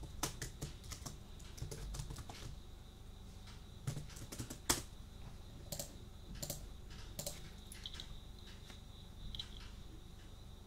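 Typing on a computer keyboard: a quick run of keystrokes, then slower scattered key clicks from about two and a half seconds in.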